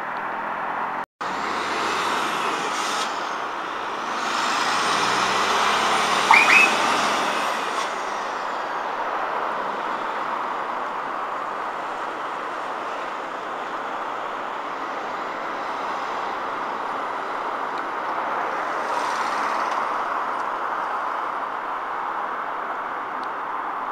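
Heavy road traffic at a junction: a steady wash of engine and tyre noise. From about four seconds in, a heavy lorry's engine rises in pitch as it pulls away, and about six seconds in there is a brief, sharp, high squeal.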